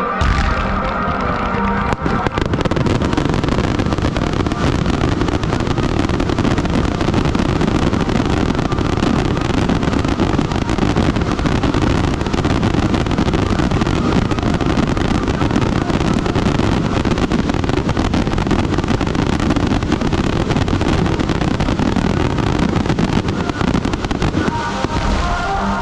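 Fireworks barrage: a loud, unbroken rush of bursts and crackling, the strikes packed so closely that they run together.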